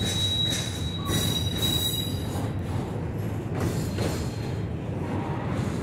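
Intermodal freight train's loaded well cars rolling past: a steady rumble of steel wheels on rail with occasional clunks, and a thin, high, steady wheel squeal during the first two seconds.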